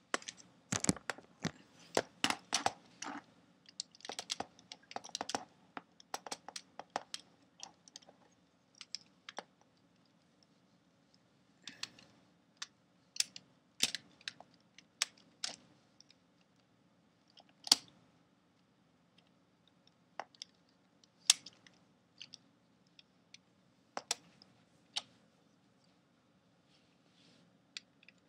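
Plastic Lego Technic parts clicking and clattering as they are handled and worked: a dense run of irregular clicks for the first several seconds, then single sharp clicks every few seconds.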